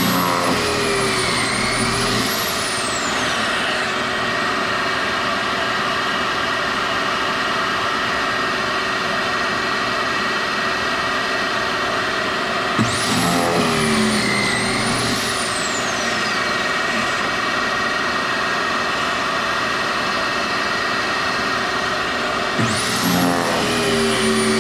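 Kreg pocket-hole machine drilling pocket holes in wooden rails: its motor spins up and winds down three times, about ten seconds apart. Under it runs a steady, loud whine from dust extraction.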